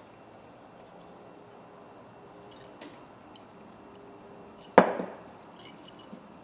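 Steel diagonal pliers being handled and worked closed: a few faint metallic clicks, then one sharp metal clack just under five seconds in, followed by more small clicks.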